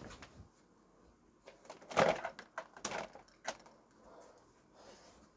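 A few knocks and clicks of objects being handled, the loudest about two seconds in.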